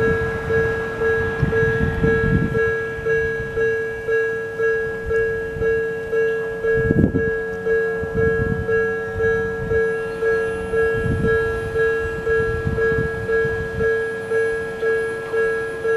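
Odakyu-style electronic level-crossing warning bell ringing in a steady repeated ding, a little under two strokes a second, signalling that a train is approaching the crossing. Occasional low rumbles sound underneath.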